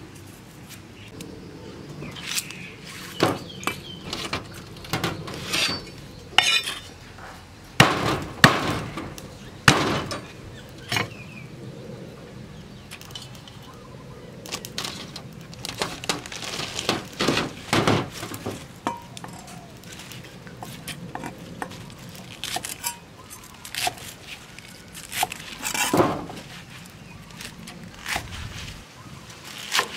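Irregular knocks and clinks of a steel cleaver on a thick round wooden chopping block and against steel bowls. Near the end, the cleaver cuts through the stalks of leafy greens.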